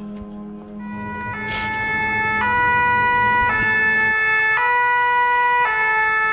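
Two-tone emergency-vehicle siren alternating between a high and a low note about once a second. It fades in about a second in and grows louder.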